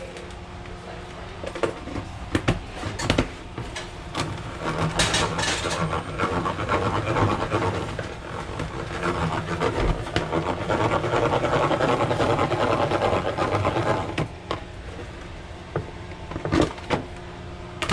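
Kitchen handling sounds: scattered knocks and clatter, with a steady rushing noise through the middle that stops about fourteen seconds in.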